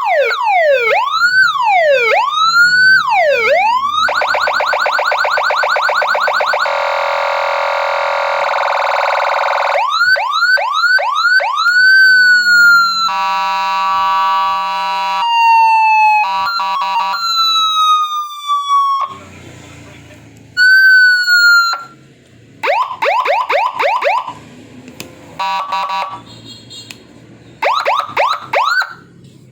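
Electronic vehicle siren of the police-escort kind, sounding loudly through a horn speaker and switched from one tone to the next: fast rising-and-falling yelps, slower wails, a rapid warble, a steady buzzing horn tone and long falling glides. Over the last third it sounds in short bursts with gaps between them.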